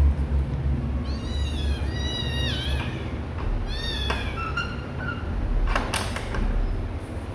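Kittens meowing: a run of high-pitched calls about a second in and a few more around four seconds in, kittens calling for their mother to nurse.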